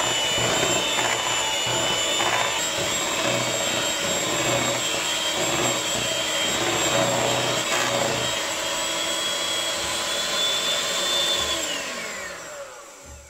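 Handheld electric mixer running steadily with a high whine as its beaters churn cake batter in a bowl. About eleven and a half seconds in it is switched off, and the whine falls in pitch and fades as the motor winds down.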